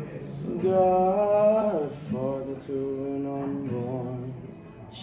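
A man singing a slow song with long held notes, accompanied by his strummed acoustic guitar.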